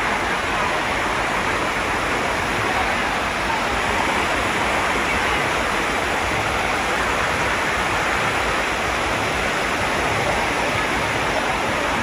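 Water of Dunn's River Falls pouring over the rock steps close by, a steady loud rush of white water.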